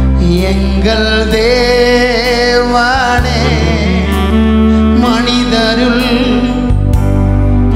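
A man singing a worship song into a microphone, his voice wavering with vibrato, over instrumental backing with long held bass notes that change every second or two.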